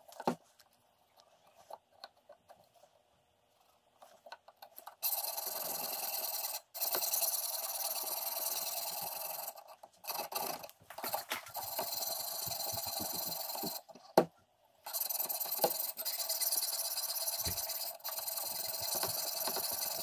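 A sharpening stone on a guided knife-sharpening system is worked rapidly back and forth along the edge of an S35VN steel blade, giving a steady rasp in long runs broken by short pauses. It starts about five seconds in, after a few light clicks, and a sharp click comes just after the middle.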